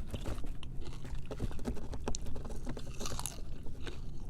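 A person chewing quietly, with scattered faint mouth clicks.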